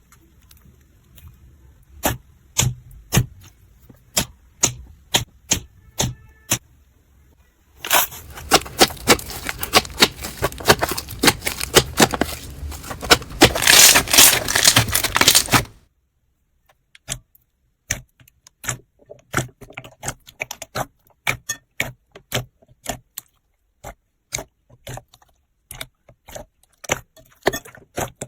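Slime being handled, with sharp popping clicks. In the middle is a long stretch of dense crackling that stops abruptly, followed by more scattered pops.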